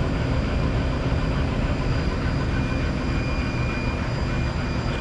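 Laser engraver running an engraving job on an acrylic sheet: a steady rush of its fans and exhaust, with a low rumble and a thin, steady high whine.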